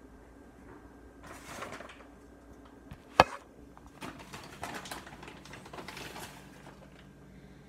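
Plastic bag of shredded mozzarella rustling as cheese is shaken out of it, in short bouts. A single sharp knock a little over three seconds in is the loudest sound.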